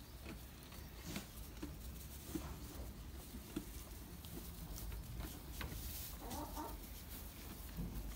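Faint rustling and small ticks from newborn goat kids nosing and mouthing at a hand and sleeve in straw bedding, with one short faint animal call about six and a half seconds in.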